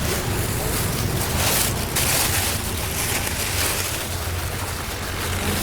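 A loud, steady rushing hiss, like air or wind, swelling a little about two seconds in.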